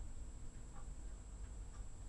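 Faint regular ticks, about one a second, over a steady low hum.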